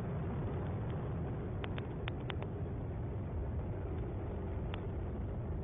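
Atlas V rocket's RD-180 booster engine rumbling steadily as the rocket climbs just after liftoff, heard over a launch broadcast feed. A few faint brief ticks come through in the middle.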